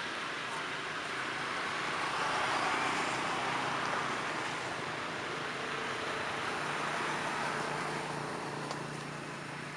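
Steady rush of road traffic that swells about two to four seconds in and eases toward the end, with a faint low engine hum later on.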